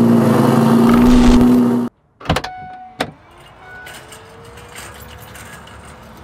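A loud, steady droning tone cuts off abruptly about two seconds in. Then come a click, a short beep and another click, and a car's power liftgate motor hums faintly, rising slightly in pitch as the hatch opens.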